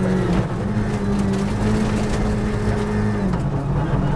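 Ford Fiesta R5 rally car's turbocharged four-cylinder engine heard from inside the cabin at high speed on gravel, holding a steady note, then dropping in pitch a little over three seconds in as the car slows. Gravel and tyre noise runs underneath.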